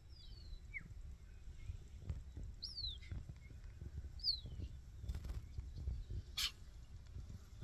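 Cheetah cubs chirping: a few short, high, falling bird-like chirps, a second or two apart, the call cubs make for their missing mother. A low rumble runs underneath.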